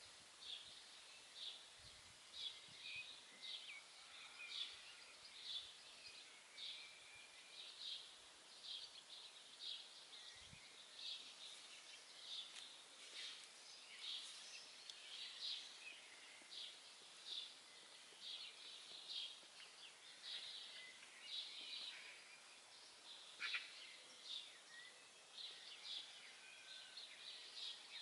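Small songbirds chirping: short high notes repeated about once or twice a second, over a faint background hiss.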